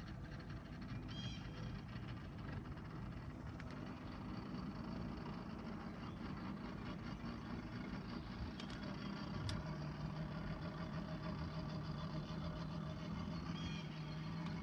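Boat motor running steadily at trolling speed, a low hum with a deeper tone joining about two-thirds of the way through. A single sharp click comes just before the change.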